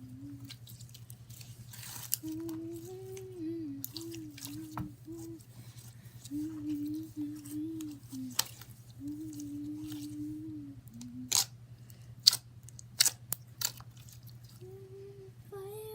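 A girl humming a tune while handling slime, with several sharp slime pops near the end.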